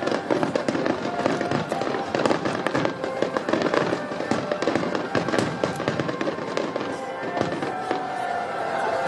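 Aerial firework shells bursting in a rapid barrage, with dense crackling and many sharp reports a second; the barrage thins out near the end.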